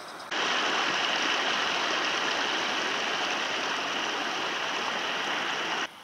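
Rushing water of a mountain stream: a steady, even rush that starts and stops abruptly.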